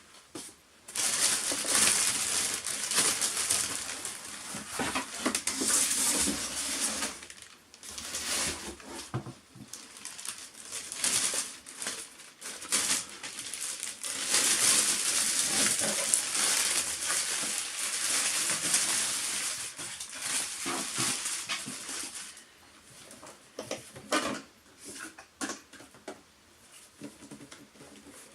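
Packaging being handled during an unboxing: rustling and crinkling with clicks and knocks, in stretches of several seconds with short pauses, dying down to scattered clicks near the end.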